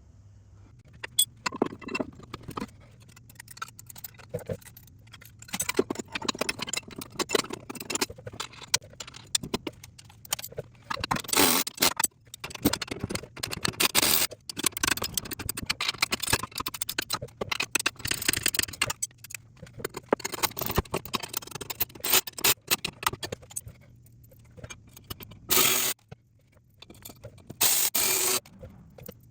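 Mud-flap mounting hardware and hand tools being worked: irregular clicks, scrapes and rattles of bolts, nuts and a metal backing plate, with a couple of short, louder bursts near the end.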